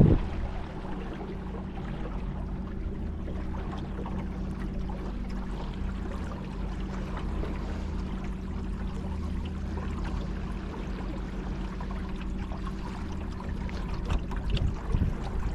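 Battery-powered kayak motor running with a steady low hum, over the continuous wash of water along the hull. A short knock sounds right at the start.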